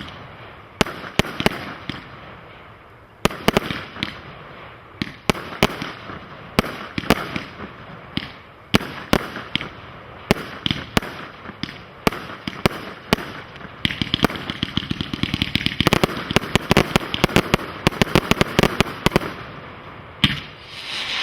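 Brothers Pyrotechnics 'The Big Show', an 83-shot single-ignition firework cake, firing: a string of sharp bangs and crackling shell breaks, turning into a dense rapid run of pops about two-thirds of the way in, with a loud hissing swell near the end.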